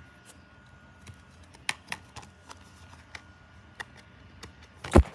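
Plastic Blu-ray case being handled: scattered light clicks and taps of the case, then one loud thump near the end.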